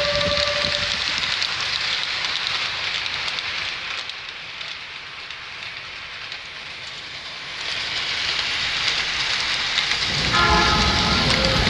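Recorded sound of a real train running: a steady rushing rail noise that dips for a few seconds in the middle. A horn blast tails off in the first second, and a chord-like train horn sounds again about ten seconds in.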